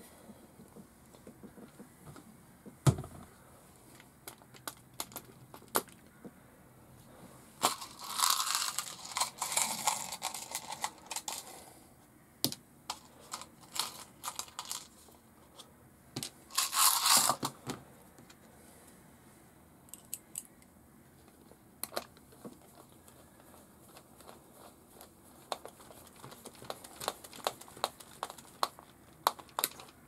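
Hands fitting a wheel hub and wheel onto a Tamiya GF-02 radio-controlled truck chassis: scattered small clicks and knocks of plastic and metal parts, with two longer noisy scraping stretches, one from about eight to eleven seconds in and a shorter one around seventeen seconds.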